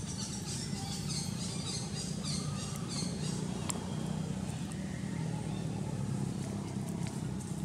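Outdoor ambience: a steady low hum with a run of short high chirps over the first three seconds and a few faint clicks.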